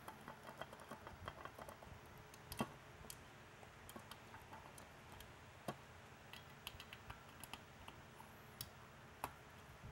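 Faint clicking and ticking of a hand screwdriver backing out small screws from a beacon's cast metal base, with a few sharper clicks spread through.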